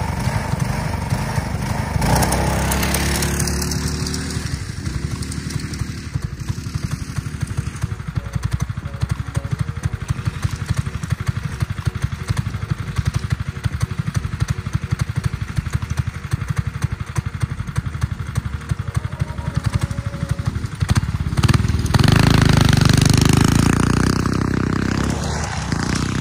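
Small single-cylinder go-kart engine running as the kart pulls away across grass. It revs up about two seconds in, then fades steadily with distance, and it is loud again for a few seconds near the end.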